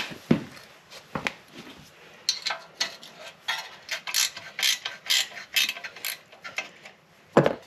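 Ratchet wrench clicking in short strokes, about two to three bursts of clicks a second, while a bolt is being backed out. There are a couple of single knocks of the tool at the start and one sharp clack near the end.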